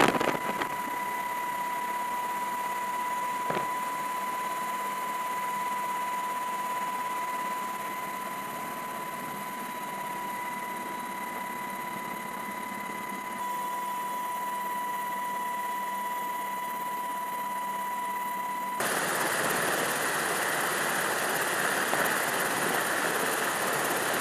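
Helicopter cabin noise in flight: a steady rushing drone with a constant high-pitched whine. About nineteen seconds in, the whine stops and a louder, rougher rushing takes over.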